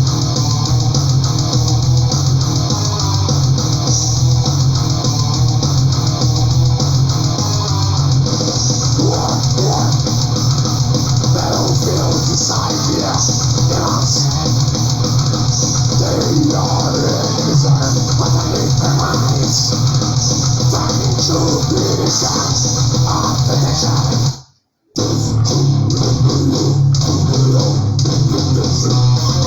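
Death/thrash metal recording: distorted electric guitars, bass guitar and drum kit playing. The music cuts out for about half a second near the end, then starts again.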